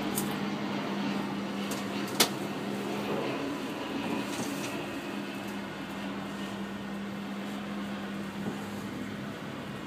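Steady hum with a constant low tone inside a moving cable car gondola, with one sharp click about two seconds in.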